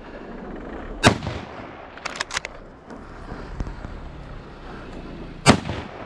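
Two loud gunshots about four and a half seconds apart, each trailing off in an echo, with a few short sharp clicks in between.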